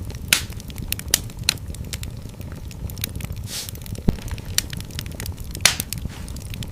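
Fireplace fire crackling: frequent irregular sharp pops and snaps over a steady low rumble of the flames, with a brief hiss about three and a half seconds in.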